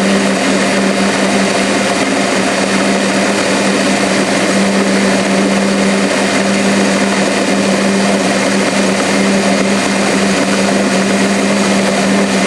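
Metal lathe running under power feed while a CCMT carbide insert turns a steel bar: a steady machine hum with a strong low tone, over a continuous hiss of cutting.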